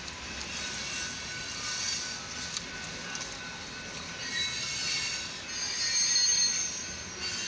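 Union Pacific freight train rolling past a grade crossing: its steel wheels squeal against the rails in several high, wavering tones over a steady low rumble of the cars, loudest about six seconds in.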